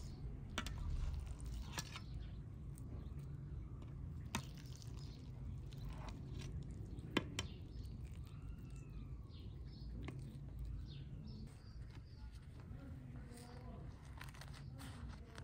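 A steady low rumble with a few sharp clicks and knocks scattered through it, the loudest about seven seconds in, and a bird chirping briefly about eight seconds in.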